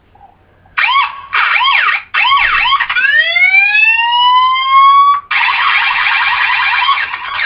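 Electronic police siren cycling through its tones: quick up-and-down yelps starting about a second in, a long rising wail from about three seconds, then a rapid warble from about five seconds.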